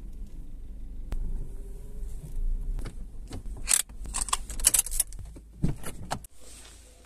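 Car interior with the engine rumbling low, then a run of sharp ratcheting clicks as the handbrake lever is pulled up, and a clunk as the inside door handle is pulled to open the door. The low rumble cuts off suddenly near the end.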